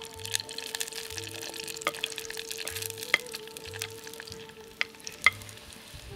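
Sliced red onions frying in hot coconut oil in a clay pot, with a steady sizzle and a few sharp crackles, the strongest about five seconds in.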